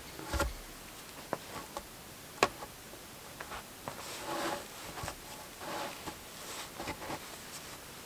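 A heavy wooden log set down across a cabin doorway with a dull thump, then a sharp knock about two seconds in, followed by scattered small knocks and soft rustling as hands work along the log.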